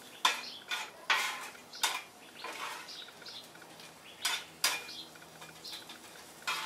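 Stainless-steel bench scraper scraping and clacking against the steel plate of a flat-top griddle as it scoops up cooked shrimp: about nine short, sharp scrapes at an uneven pace.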